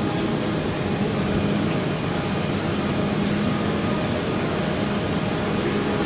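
Steady, loud rumbling hiss of a metro station platform, with a low hum running through it.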